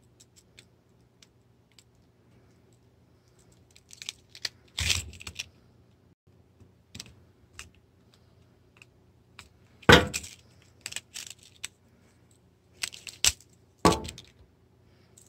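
Small plastic toy parts clicking, scraping and snapping as a metal pick pries apart the mechanism, with a few louder snaps among the scattered light clicks.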